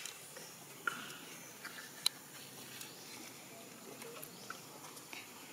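A few faint, short animal squeaks and a couple of sharp clicks over low background noise.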